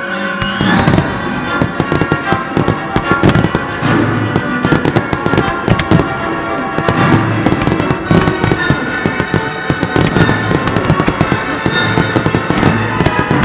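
Aerial firework shells bursting in quick succession, a dense run of sharp bangs, over loud music of the pyromusical soundtrack.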